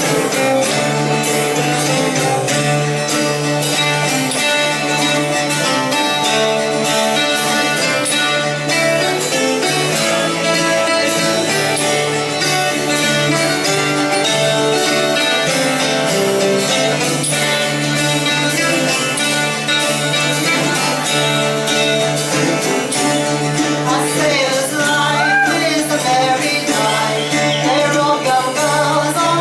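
Live folk band music: instruments playing over a steady beat and a held low bass note, with a wavering voice coming in near the end.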